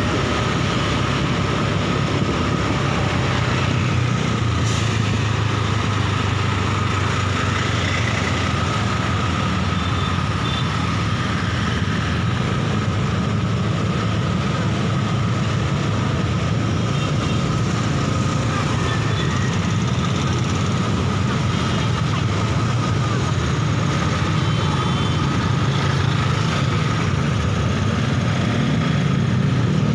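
Steady motorbike engine and road noise in dense traffic, with the rumble of surrounding cars and motorcycles; it swells a little near the end.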